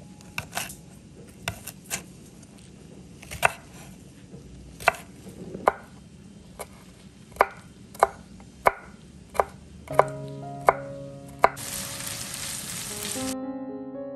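Chef's knife chopping a green bell pepper on a wooden cutting board: sharp separate knocks of the blade on the board, about one a second. Piano music comes in near the end, with a short hiss just before it.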